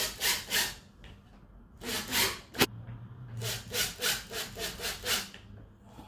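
Cordless drill driving screws through a subwoofer's metal trim ring into the MDF enclosure, in short runs of repeated grinding bursts. There is one sharp click near the middle.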